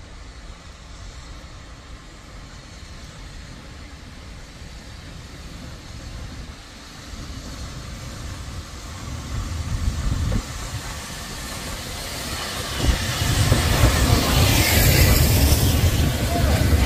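Steam tank locomotive with a train of coaches approaching and running past at low speed, growing steadily louder as it nears. From about two-thirds of the way through there is a heavy rumble of wheels on rail, and a loud hiss of steam as the engine draws alongside near the end.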